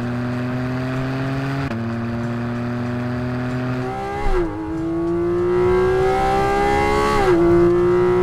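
Porsche 718 Cayman GT4 RS's naturally aspirated flat-six engine pulling hard under acceleration, its pitch climbing steadily. It drops three times, at about two, four and seven seconds in, as the gearbox upshifts, then climbs again.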